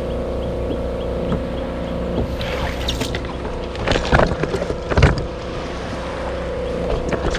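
A motor running steadily with an even hum, with a few sharp knocks about four and five seconds in.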